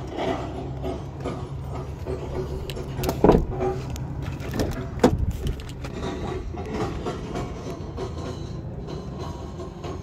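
Handling noise inside an SUV's cabin: rustling and two sharp knocks, about three and five seconds in, over a steady low hum.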